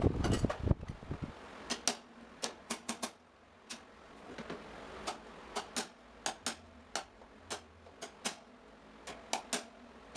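Irregular sharp clicks and taps, about twenty of them, scattered unevenly, from hand work on an old electric fan's parts.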